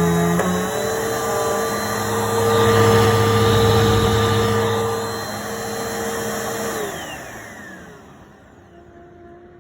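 Bissell PowerForce Helix upright vacuum cleaner running with a steady motor whine, then switched off about seven seconds in, its motor pitch falling as it spins down.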